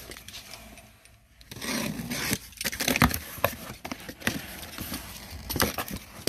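Handling noise from unpacking toys: cardboard and plastic packaging rustling and scraping, with scattered light clicks and knocks.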